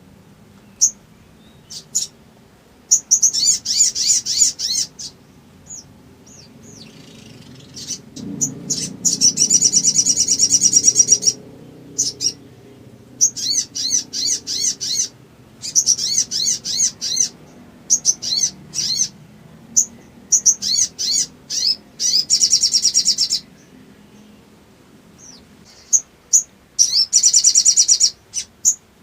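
Little spiderhunter (sogok ontong) calling in bursts of very rapid, high chipping notes, each run lasting about half a second to three seconds, with short pauses between runs.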